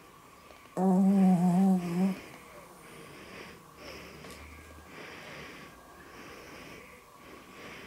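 A sleeping small long-haired dog snoring: one loud, wheezy, pitched snore lasting just over a second about a second in, then softer snoring breaths about once a second.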